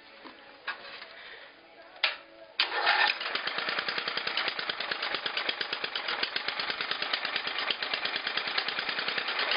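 A 1980 MTD riding mower's engine with an open exhaust pipe: a short burst of cranking about two seconds in, then it catches and runs with a loud, rapid, even popping from the pipe.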